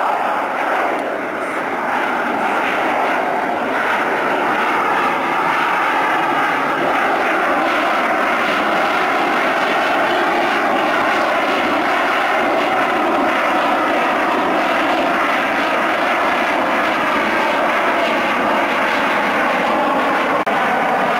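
F-16 fighter's single Pratt & Whitney F100 turbofan jet engine heard from the ground as the jet flies by overhead: a loud, continuous rushing jet noise with faint tones slowly sinking in pitch.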